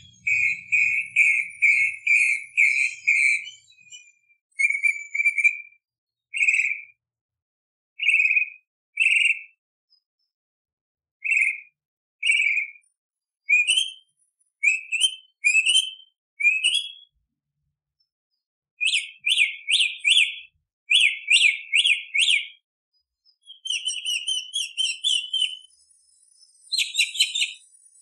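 Tropical mockingbird singing a varied song of clear whistled phrases. Each phrase is repeated several times before it switches to a new one: a quick run of notes, then single slurred whistles with pauses between, then rising notes, rapid clusters and a short trill near the end.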